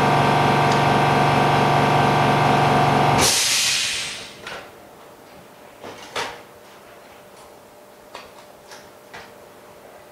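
The pump of a phone-screen lamination machine runs with a steady hum, then shuts off about three seconds in with a sudden hiss of released air that dies away within a second. After that come a few light clicks and taps.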